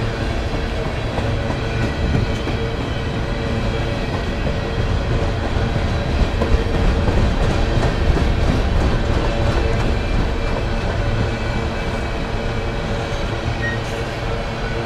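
Empty coal hopper cars of a freight train rolling past: a steady rumble of steel wheels on rail, with clicks as wheels pass over rail joints, a little louder in the middle.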